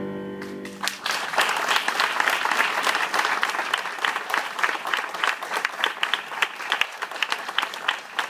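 A choir's last held chord fades out, and about a second in an audience breaks into steady applause.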